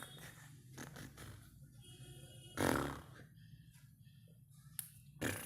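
Newborn baby making noisy breathing sounds through nose and throat. The loudest comes about two and a half seconds in, and a shorter one comes near the end.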